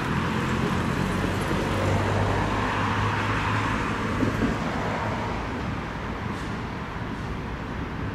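Tram running by on street track: a steady low hum over wheel and traffic noise, loudest a few seconds in and easing off near the end.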